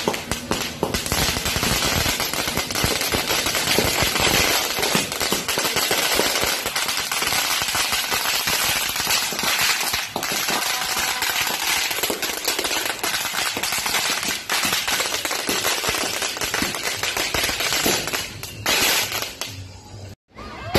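Firecrackers going off at ground level: a dense, unbroken crackle of rapid bangs that thins out near the end and cuts off suddenly.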